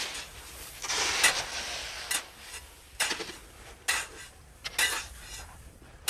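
Shovels digging into a heap of coarse sea salt: a sudden scraping crunch about once a second, the first one longer.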